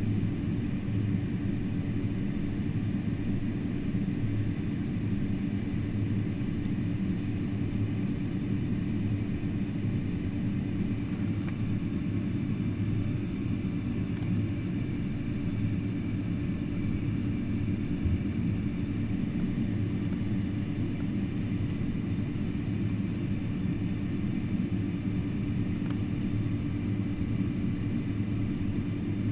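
Steady cabin rumble and hum of a Boeing 747-400 on the ground, a low drone with steady low tones and no change in level.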